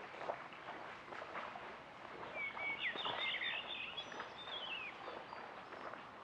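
A songbird sings a few quick chirping, warbling phrases from about two seconds in to about five seconds in, over soft irregular splashing and lapping of lake water.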